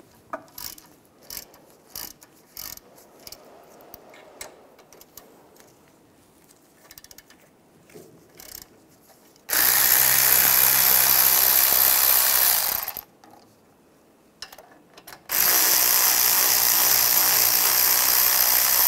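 Power ratchet with a 7 mm hex socket loosening brake caliper slide pins. It runs in two steady bursts of about three seconds each, one for each pin, after several seconds of light metal clicks as the socket is fitted.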